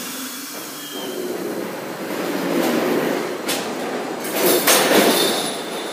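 R62 subway train pulling out of the station, wheels and cars running over the rails and growing louder, with sharp clacks over rail joints about three and a half and five seconds in and a faint high wheel squeal in the second half.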